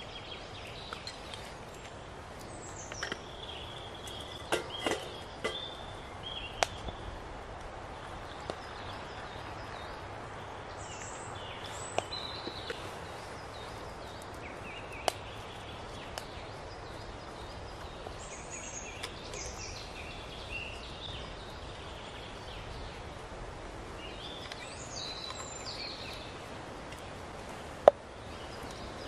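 Small twig stove burning with scattered sharp crackles and clicks over a steady hiss, while woodland birds sing off and on. Near the end a single sharp knock, the loudest sound, as a container is set down on a wooden stump.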